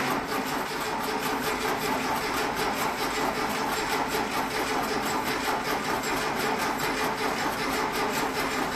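Starter motor cranking a freshly built air-cooled Volkswagen flat-four engine, starting suddenly and keeping up a steady rapid rhythm. The engine turns over but does not fire.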